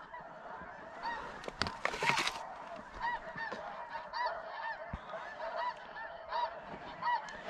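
A large flock of snow geese calling in flight, many short, arched honks overlapping without pause, the whole flock having lifted off at once. A short burst of noise stands out about two seconds in.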